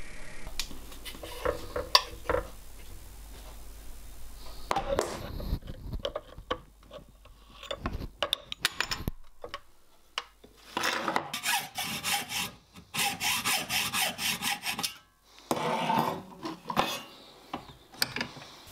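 Scattered clicks and knocks of handling metal parts, then runs of quick, evenly spaced rasping strokes, about five a second, from a hand file deburring the edge of a thin cast iron plate clamped in a bench vise.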